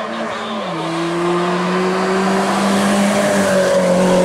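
Race car engine pulling hard up a hill climb course. The engine note drops sharply as it shifts up a gear, under a second in, then climbs again, getting louder as the car approaches.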